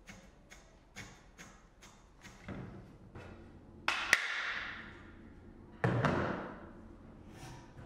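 Retted flax being drawn through the nails of a wooden hackle in quick strokes, about two a second. Then come two loud knocks about two seconds apart, each trailing off over about a second, as a wooden board is set down on a hollow plastic crate.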